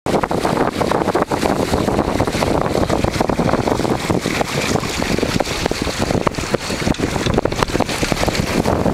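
Wind buffeting the microphone hard, with water rushing and splashing along the hull of a small sailboat under way.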